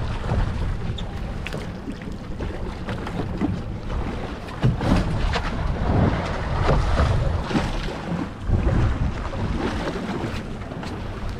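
Wind buffeting the microphone and water sloshing against a boat's hull, with scattered short knocks throughout.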